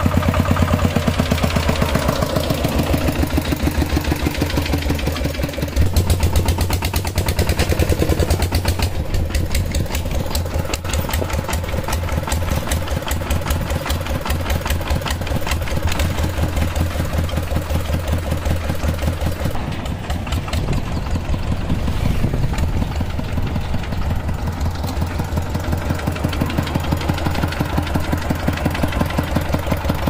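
Single-cylinder diesel engine of a two-wheel walking tractor running under way while it pulls a trailer, an even, fast chugging.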